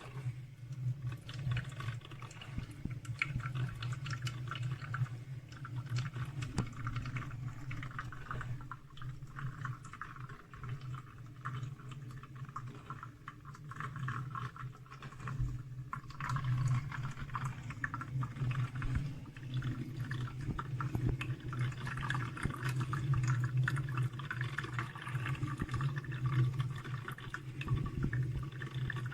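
Salter one-cup filter coffee maker brewing: hot water bubbling and trickling through the machine and filter, over a steady low hum. The bubbling eases for several seconds in the middle, then picks up again.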